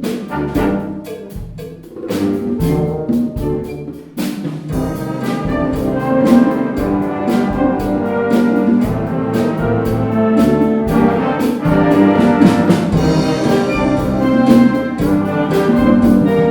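Concert wind band playing a Latin-style piece, brass section prominent with trumpets and trombones over steady percussion; the playing grows louder about four seconds in.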